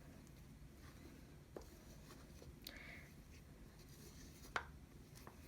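Near silence with a few faint clicks and taps from slime ingredients and a mixing bowl being handled, and a brief soft hiss about halfway through.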